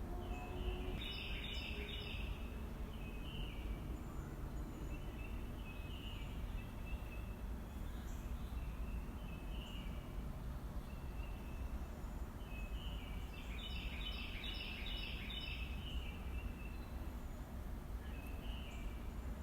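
Birds singing over a steady low outdoor rumble. Two longer phrases of quick stepped notes come about a second in and again about fourteen seconds in, with shorter calls between them.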